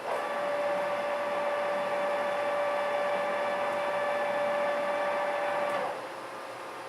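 TOS lathe running with a steady mechanical whine for about six seconds, then cutting off suddenly; a lower steady hum carries on underneath.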